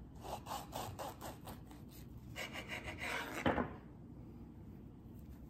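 A kitchen knife sawing back and forth through a baked muffin on a wooden cutting board, in short rasping strokes about four or five a second. Near the end comes a denser scrape and a knock about three and a half seconds in, as the blade goes through onto the board.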